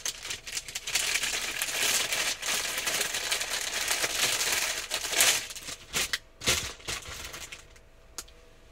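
Thin clear plastic bag crinkling and rustling as a terry-cloth hair band is pulled out of it. The crinkling is continuous for about five seconds, followed by a few scattered crackles before it dies away.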